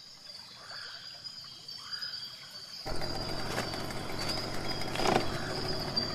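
Tropical outdoor ambience: insects trilling steadily at a high pitch, with a short bird call that rises and falls about once a second. About three seconds in, a louder rushing noise sets in suddenly and carries on under the insects, with a couple of brief sharp sounds in it.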